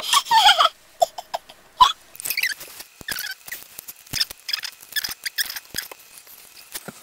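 Sped-up recording of a plastic lollipop wrapper crinkling and crackling in irregular bursts as it is picked at. High, squeaky chipmunk-pitched vocal sounds come at the start and briefly twice more.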